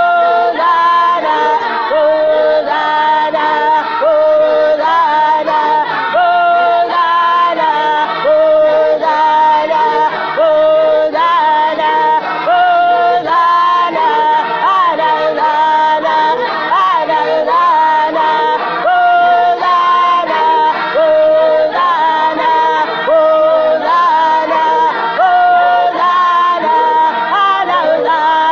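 Choir of women's voices singing a gospel song in harmony.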